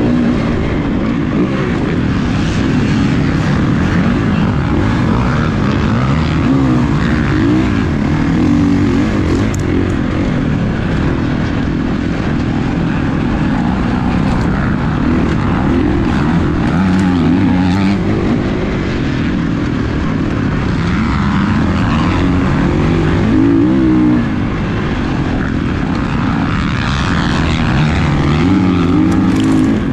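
Motocross dirt bike engine racing, the revs climbing and dropping every second or two as the bike is ridden hard through the track.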